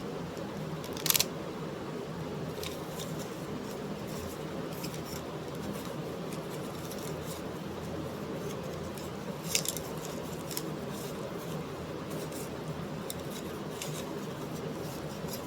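Steady low hum and hiss with sharp clicks: two loud ones, about a second in and about nine and a half seconds in, and fainter ticks between.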